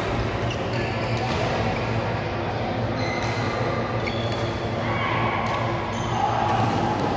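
Badminton rackets striking a shuttlecock in a rally, sharp irregular hits about once a second, in a reverberant sports hall with a steady hum and distant chatter. A brief squeak comes about five seconds in.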